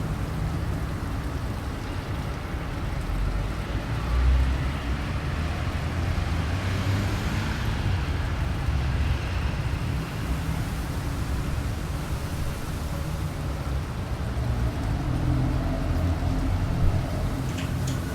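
Gusty wind blowing, with a low rumble of wind buffeting the microphone. A gust swells into a louder hiss about a third of the way through.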